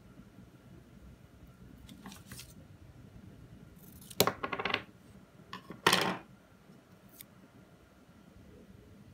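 Washi tape being drawn off its roll and cut with small scissors: a faint rustle, then two loud snipping, rasping bursts about a second and a half apart, and a light click.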